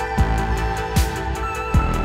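Background music with a steady kick-drum beat, about one beat every three-quarters of a second, under held tones.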